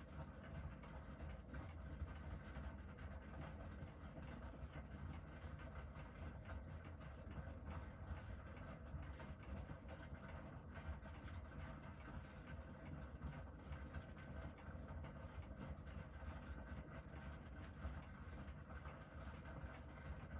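Faint ticking of a Seiko 7549 quartz diver's watch movement running on the timing tester while its rate is measured, over a low steady hum. The rate is regulated to within a few hundredths of a second per day.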